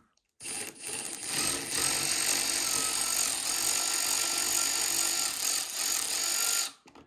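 Milwaukee cordless impact wrench hammering in reverse on a seat bolt: a short burst about half a second in, then a continuous run of about six seconds with a steady high whine over the rapid hammering, stopping shortly before the end. The bolt comes loose easily.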